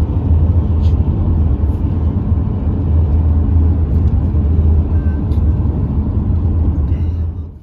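A car's interior while driving on a road: a steady, loud low rumble of engine and tyre noise. It cuts off suddenly near the end.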